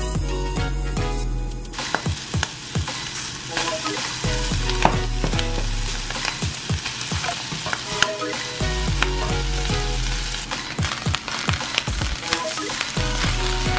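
Diced Spam, sausage and vegetables sizzling in a hot wok as cooked rice is spooned in and stirred for fried rice, with frequent clinks and scrapes of the spoon and spatula against the pan.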